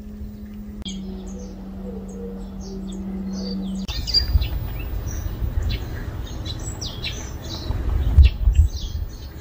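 Small birds chirping, short high calls, many of them, that grow busier about four seconds in. A steady low hum runs underneath until about four seconds in, with low rumbling throughout.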